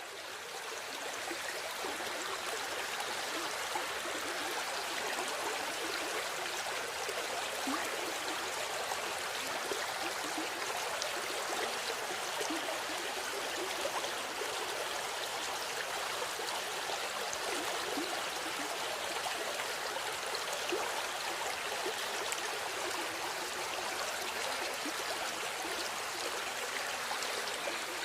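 River water flowing steadily over stones, a continuous rushing with small gurgles and splashes.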